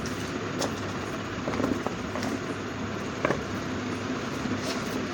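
A few light clicks and taps of a phone box and its contents being handled, over a steady background noise.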